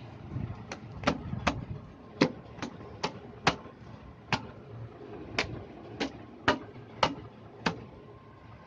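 Sharp taps and clicks, about a dozen at uneven intervals, from the opened amplifier being handled and worked on as it is cleaned.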